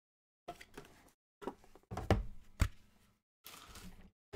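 A small cardboard trading-card box being handled, with knocks and scuffs, and two heavy thumps against the table about two seconds in as it is set down.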